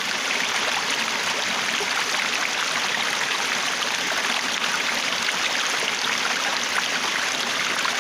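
Water flowing steadily in a stream, an even babbling rush with small splashes throughout.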